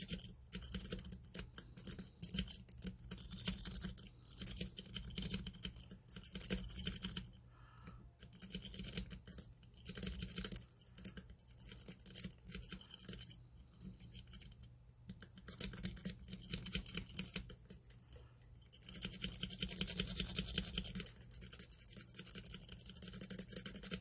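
An octa rake being worked in and out of the keyway of a Master Lock Magnum M930 five-pin padlock: rapid fine metallic clicking and scraping of the rake over the pins, in bursts of a few seconds with brief pauses.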